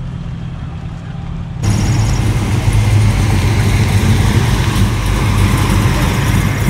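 Classic Mopar car engines running as the cars drive slowly past. About one and a half seconds in, the sound cuts abruptly to a louder, rougher engine as a Plymouth Duster rolls by close up.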